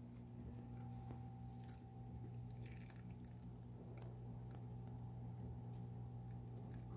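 A steady low hum runs throughout, with a few faint, scattered clicks and taps.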